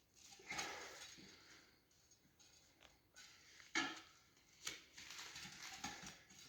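Faint clinks and scraping of metal tire levers against a dirt bike wheel rim as a tire is forced onto it, with a few sharp knocks about half a second, nearly four and nearly five seconds in.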